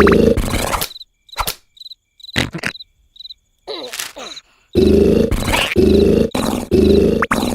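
Cartoon snoring: deep, buzzy snores. They stop for a few seconds, leaving high cricket-like chirps and a few sharp clicks, then start again about five seconds in as a run of quick, repeated snores.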